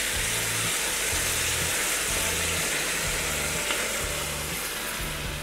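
Bacon chili sizzling in a cast-iron Dutch oven as chopped tomatoes are poured in and stirred with a wooden spoon: a steady frying hiss that eases slightly near the end.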